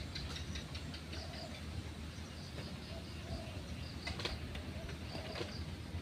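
Flowerpecker giving short, high chips at irregular intervals, over a steady low hum.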